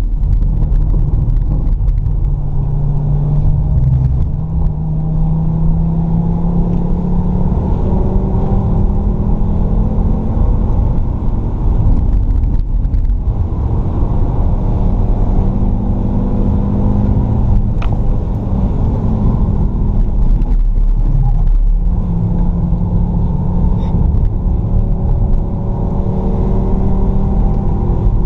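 Fiat Stilo Abarth's 2.4-litre five-cylinder engine at speed on track. Its pitch climbs under acceleration and falls back several times as the driver shifts or lifts, over steady road noise.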